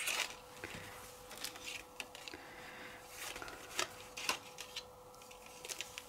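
Soft rustling of paper and fabric ribbon, with a few light taps and ticks, as a ribbon with a card tag is tied around a small handmade paper journal. A faint steady hum runs underneath.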